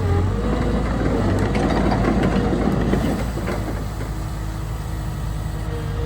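Diesel engine of a Cat 314E LCR excavator running steadily, with scattered rattles and knocks over the first three seconds or so and a steady whine coming in near the end.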